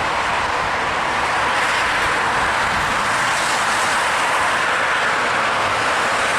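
Steady rushing hiss of traffic driving through surface water on a flooded road, with tyres spraying water. It holds an even level, with no single vehicle standing out.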